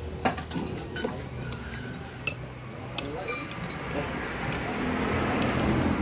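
Cutlery clinking against a bowl of bakso (meatball soup) while eating: a few sharp clinks with quieter taps between, over a steady background murmur that grows louder in the second half.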